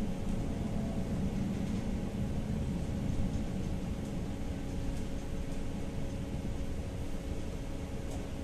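Tatra-Yug K1 tram running, heard from inside the car: a steady rumble of wheels on rail with a faint steady hum.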